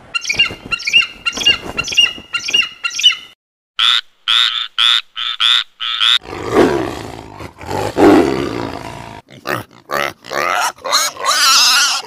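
A quick run of short high calls, then a tree frog calling, six loud croaks in a row, then a pig grunting and squealing.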